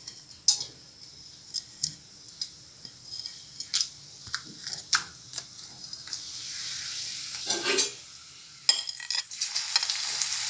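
A spoon clinking and scraping against a plate and the rim of a kadhai as whole spices and grated garlic are tipped into hot oil. Hot oil starts to sizzle about six seconds in and becomes a loud, steady sizzle near the end as the garlic hits the oil.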